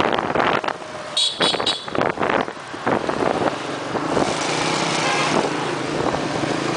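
Street traffic heard from the back of a moving motorbike, with rough wind buffeting on the microphone. About a second in there is a quick run of three short, high-pitched rings or toots.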